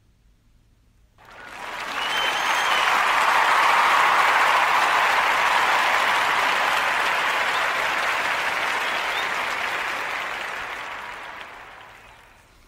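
Crowd applause, swelling in about a second in and fading slowly away near the end.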